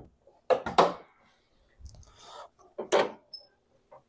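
Pontiac G6 hood being unlatched, lifted and propped open: a couple of sharp metallic clicks about half a second in, a dull low thud near two seconds, and a sharp clack about three seconds in as the prop rod is set.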